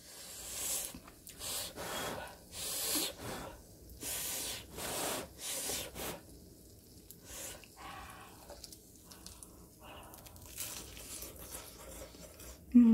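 A person chewing crisp batter-fried flower fritters (튀김) close to the microphone: a run of short crunches through the first six seconds, fainter and sparser after that.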